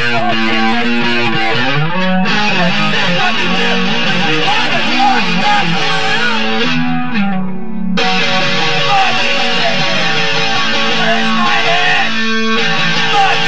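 Electric guitar being strummed and played, with a man singing over it.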